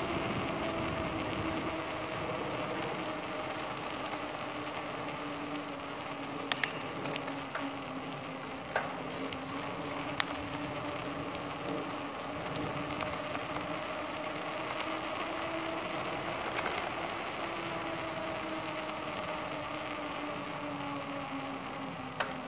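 Bicycle tyres rolling on a paved trail: a steady hiss with a hum that drifts slightly in pitch, and a few sharp clicks and knocks.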